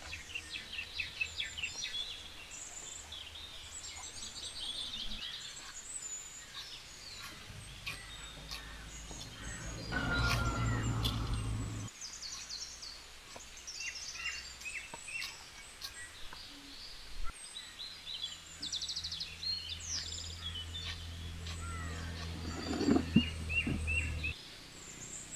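Many small birds chirping and calling in the open, over a low steady hum that comes in twice, briefly about ten seconds in and again for several seconds later on.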